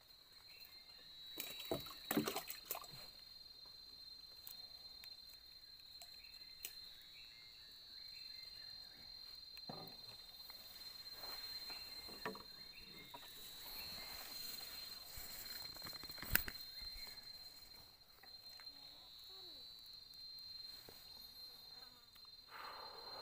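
A steady high-pitched drone of insects from the swamp forest, holding one tone throughout. A few faint knocks and clicks come and go, the sharpest about sixteen seconds in.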